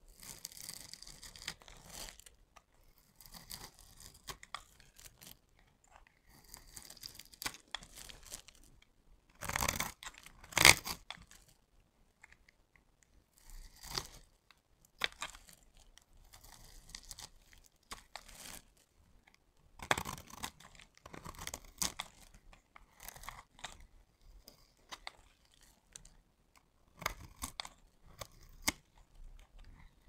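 A knife blade scraping and shaving strips off a bar of soap, a series of irregular crisp scratching strokes with short pauses between them. The loudest cuts come about ten seconds in.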